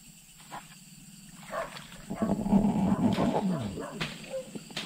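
An animal's loud, rough, rapidly pulsing call, starting about two seconds in and lasting about a second and a half, ending in a falling tone.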